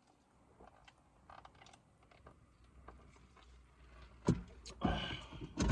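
A person chewing a sandwich with small wet mouth clicks, then a few louder lip smacks and a short breath near the end.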